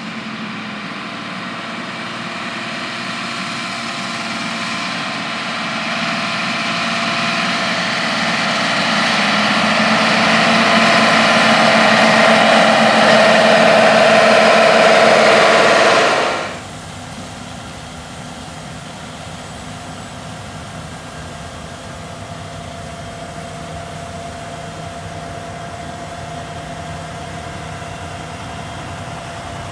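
A large farm machine's engine running, growing steadily louder for about sixteen seconds as it draws near. It then drops suddenly to a quieter, steady engine sound.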